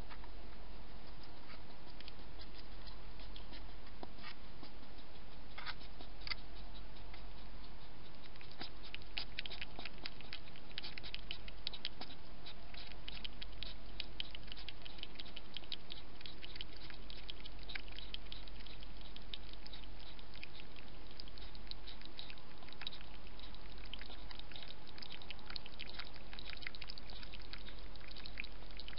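Wild European hedgehog eating from a bowl and then lapping water from a water bowl: a run of small quick clicks and smacks, sparse at first and thickening into a dense patter through the middle and latter part.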